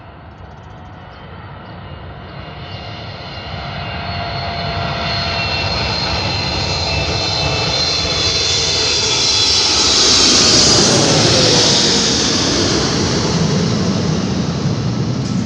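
Twin-engine jet airliner on final approach with its landing gear down, passing low overhead. The engines' whine and rushing noise grow steadily louder, peak about ten seconds in and then begin to ease, with high whining tones that slide downward as it passes.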